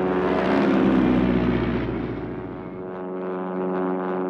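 Cartoon whoosh sound effect for a character dashing off at speed: a rushing rumble that swells and then fades away over about two seconds.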